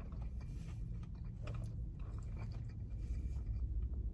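A man chewing a mouthful of steak burrito bowl, with soft, irregular mouth clicks and smacks, over a low steady hum.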